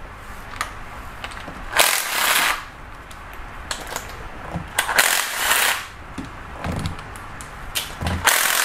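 Handheld cordless power tool with a 10 mm socket spinning out timing chain guide bolts in three short bursts, with light clatter of tool and metal parts in between.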